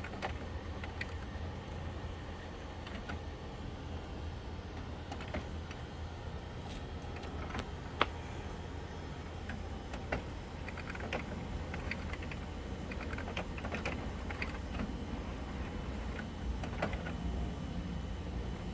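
HP OfficeJet Pro 8710 inkjet printer running a printhead cleaning cycle: scattered small mechanical clicks and ticks over a steady low hum, with one sharper click about eight seconds in.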